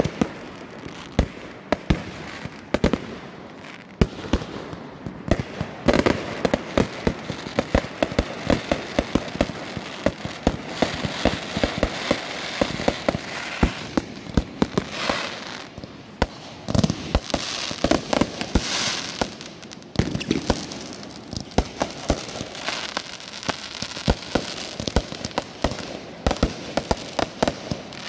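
A continuous fireworks barrage: many sharp bangs and pops, several a second and with no let-up, over a steady crackling hiss.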